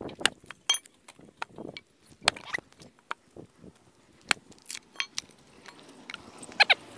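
Axe splitting firewood: a series of sharp knocks at irregular intervals as the blade strikes and splits the logs, with split pieces clattering as they are tossed aside.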